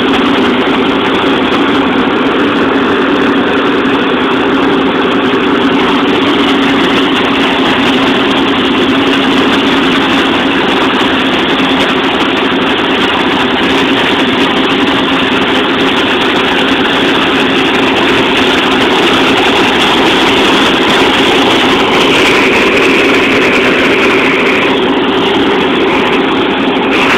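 A loud, steady engine drone with a low hum, unchanging throughout; a higher whine joins for a few seconds near the end.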